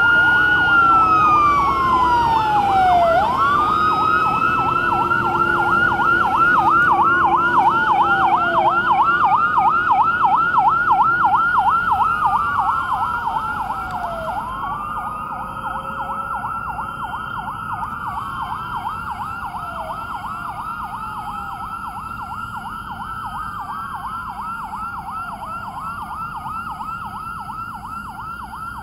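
Fire truck sirens sounding together: a slow wail that rises and falls about every five to six seconds over a fast, rapidly repeating yelp. They grow fainter from about fourteen seconds in as the trucks move away.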